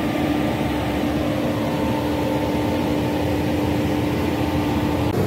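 Mobile crane's diesel engine running at a steady speed with a constant hum while it holds a concrete bridge girder on its hook.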